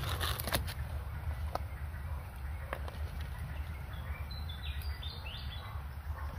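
Several sharp knocks of a machete on a leaf-covered wooden board in the first second, with single knocks later, then a short run of high bird chirps about four seconds in, over a steady low outdoor rumble.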